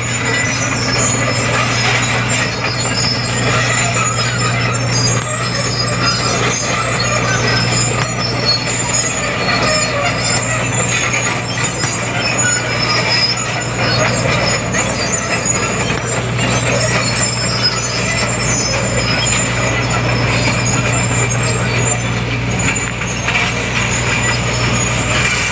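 Sumitomo SH210 hydraulic excavator running steadily at working revs while it moves a bucket load of bamboo, a constant engine drone with scattered high squeaks and creaks over it.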